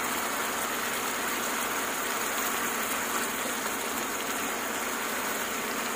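Cubed pork simmering in a pan of oil and Sprite, a steady sizzling and bubbling hiss.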